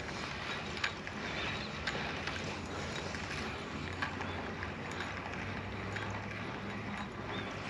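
Spinning reel being wound in while a hooked fish is played, with a few light mechanical clicks over a steady hiss.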